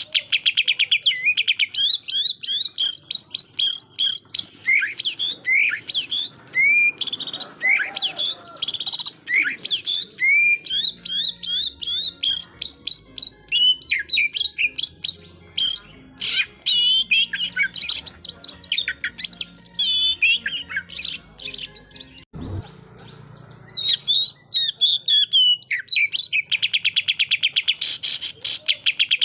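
Oriental magpie-robin (kacer) singing a loud, varied song of high whistles and rising and falling sweeps, broken by very fast machine-gun rattles of repeated notes at the start and again near the end: the aggressive 'tembakan' (shot) song used to provoke rival birds. A single short knock comes about 22 seconds in, followed by a brief pause in the song.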